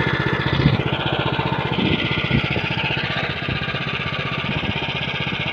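Small engine of a rotary tiller running steadily at an even speed.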